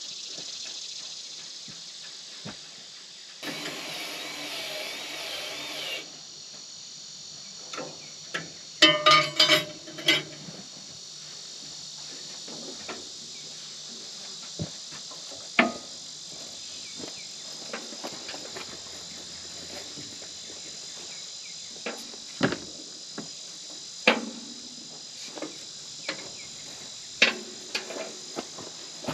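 Scattered metal knocks and clanks from work on steel pins and hydraulic cylinders of a bulldozer, loudest as a quick cluster of ringing metal strikes about nine seconds in. Insects chirr steadily underneath.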